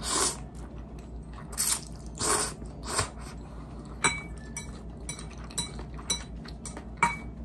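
Noodles slurped in several short bursts and chewed close to the microphone. A few light clicks of chopsticks against the bowl follow in the second half.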